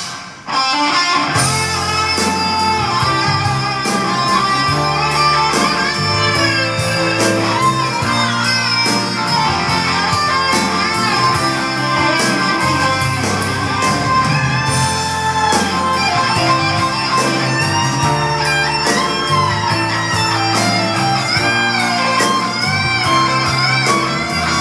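Instrumental break in a ballad: a lead guitar plays a gliding melody over band accompaniment with a steady drum beat, after a brief drop about half a second in.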